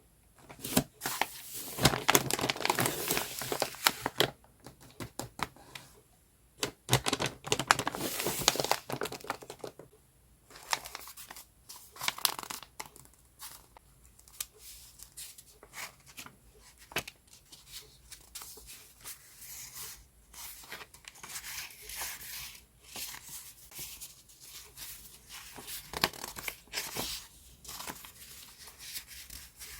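Sheets of paper and packaging being handled, rustling and crinkling. There are two longer stretches of dense rustling near the start, then lighter, scattered crinkles and taps.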